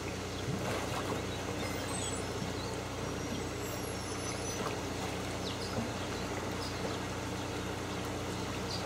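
A steady low mechanical hum under an even wash of water noise, with a few faint ticks.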